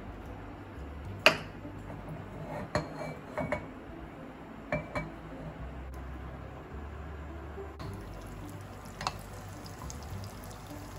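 Kitchen utensils knocking and clinking against a pan and dish, about five sharp strikes, some ringing briefly; the loudest comes about a second in, over a faint steady hiss.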